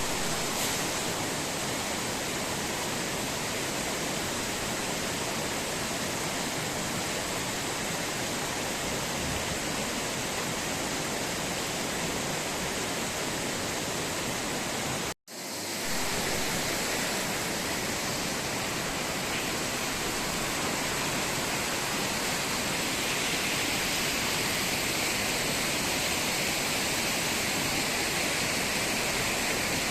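Rushing water of a stream or waterfall, a steady even rush that cuts out for an instant about halfway through and then resumes.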